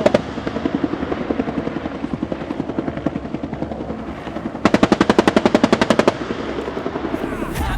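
Rapid machine-gun fire at roughly a dozen shots a second: one burst stops as the sound begins and a second burst of about a second and a half comes past the middle. Between the bursts there is a quieter, fast, steady chopping.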